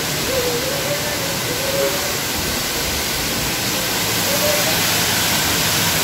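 Rushing water of the Traun river at the Traunfall waterfall: a loud, steady rush of noise that grows a little louder about four seconds in.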